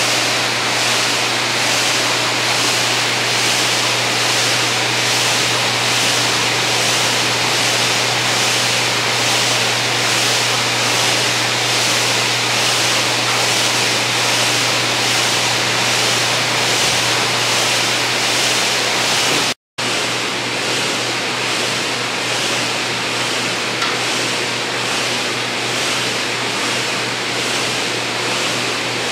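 Air-resistance flywheels of paddling ergometers whirring with a steady rush that swells faintly with each paddle stroke, over a low steady hum. The sound drops out for an instant about two-thirds of the way through, then resumes.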